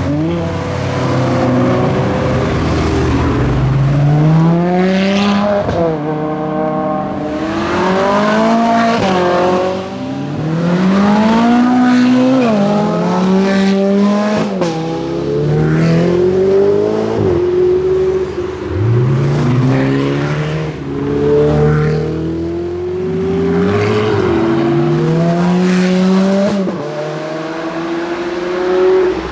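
Ferrari sports cars accelerating hard past one after another, each engine rising in pitch and dropping sharply at every upshift, again and again through the gears.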